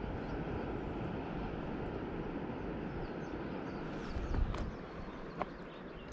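Steady outdoor rushing noise, with a few faint high chirps and two short sharp clicks near the end.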